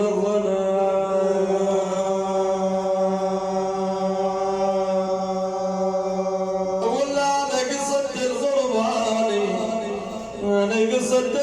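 Male praise singer's voice chanting: one long held note for about seven seconds, then a wavering, ornamented phrase.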